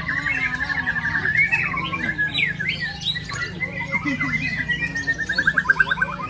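Several white-rumped shamas (murai batu) singing at once in competition: overlapping rapid trills, sharp whistles and long rattling runs that slide downward in pitch, over a steady low hum.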